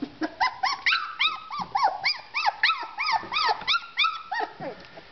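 Young Cesky terrier puppies whining in a rapid string of short, high-pitched rising-and-falling cries, several a second, which thin out near the end.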